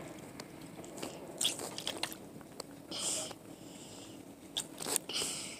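Biting and chewing at something held in a crinkly plastic container at the mouth, with small clicks and three short rustles of the plastic.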